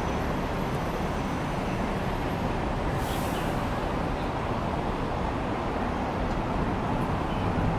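Steady hum of city road traffic, an even rumble with no single vehicle standing out.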